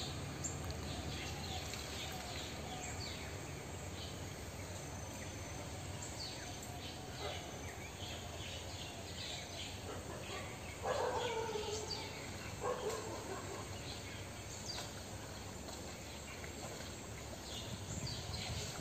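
Outdoor ambience: many small birds chirping, with a steady low hum underneath. Two louder falling calls stand out a little past the middle.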